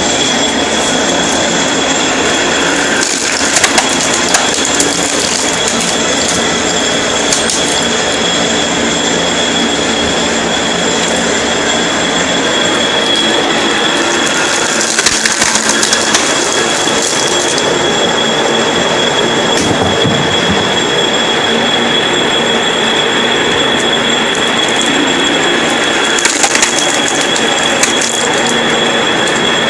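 A lathe running steadily with a constant high whine while it splits firewood. The wood squeals and creaks against the turning splitter, with louder cracking and squealing spells three times: a few seconds in, about halfway, and near the end.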